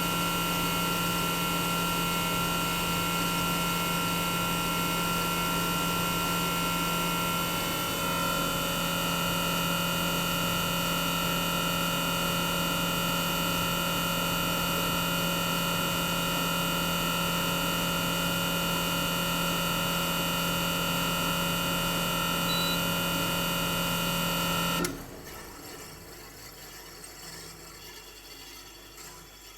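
Toshiba twin rotary inverter compressor (DA91A1F-42F, in a 1998 RAS-285LADR outdoor unit) running with a steady low hum and several high whining inverter tones. The tones step slightly in pitch about 8 seconds in. The compressor cuts off abruptly about 25 seconds in, leaving a much fainter hiss.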